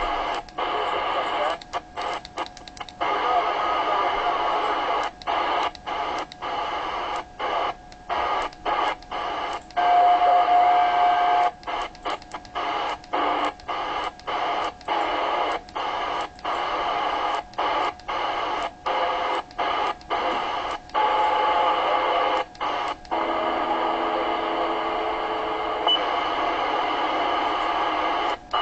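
President Jackson II AM CB radio receiving static and hiss while being stepped through the 27 MHz channels, the audio cutting out briefly again and again at each channel change. A steady whistle sounds for a second or so about ten seconds in, and weaker tones come through near the end.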